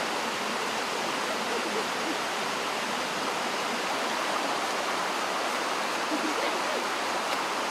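Steady rush of flowing stream water over rocks.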